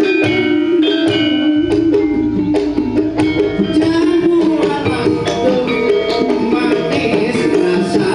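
Live campursari music from a Javanese gamelan ensemble: hand-drum strokes and ringing metal gamelan tones under a long, wavering melody line.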